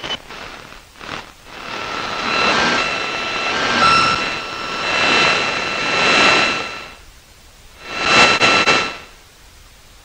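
Portable AM radio picking up interference from a TV remote control held against it and pressed: a sharp click, then the radio's static swells into a loud hiss with several steady whistle tones, dies away about seven seconds in, and comes back briefly about a second later.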